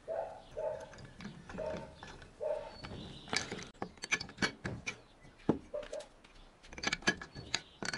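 Metal hand tools clinking and knocking as they are handled and set down on a wooden workbench, sharp clicks coming thickest in the second half. A few short pitched calls sound in the first few seconds.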